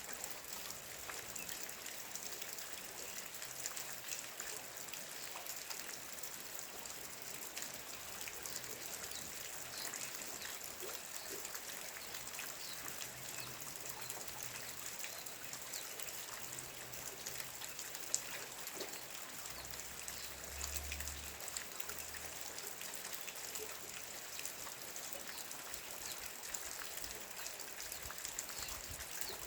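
Steady rain falling, a continuous patter of many small drops with brief sharper ticks, one sharp tick about two-thirds of the way through.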